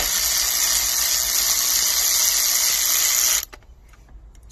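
Aerosol spray can sprayed in one continuous steady hiss for about three and a half seconds, then cut off abruptly.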